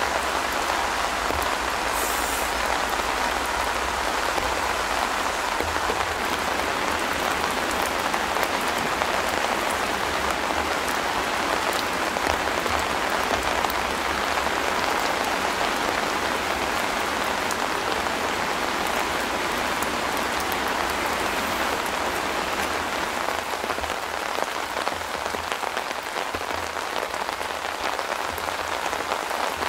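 Steady rain falling on a tent shelter's fabric: a dense, even patter of many small drops.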